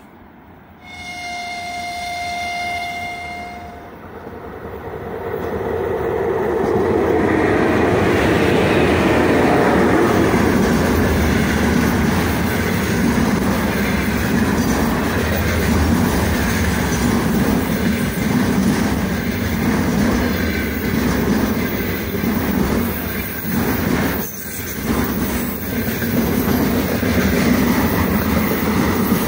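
3ES5K 'Ermak' electric locomotive sounds one horn blast of about three seconds near the start. Then its container freight train approaches, growing louder, and rolls past with a steady rumble and the clickety-clack of wagon wheels on the rails.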